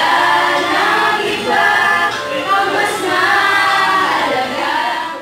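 A group of young voices singing an OPM (Filipino pop) song together, loud and choir-like.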